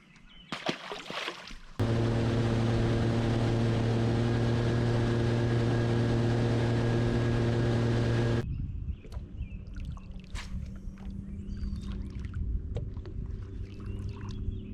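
Boat motor running at a steady speed with loud rushing noise, cutting in abruptly about two seconds in and cutting out abruptly at about eight and a half seconds. After that, a quieter steady low hum with scattered light knocks and clicks.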